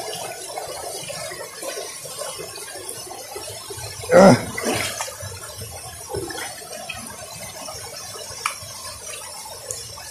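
Forest stream and small waterfall running over rocks, a steady rush of water. About four seconds in there is one brief loud pitched sound standing out above it.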